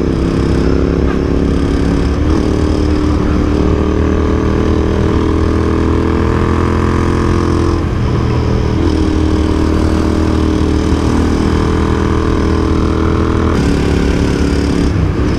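Royal Enfield Continental GT 650's 648 cc parallel-twin engine running steadily while riding along, its note shifting slightly a few times.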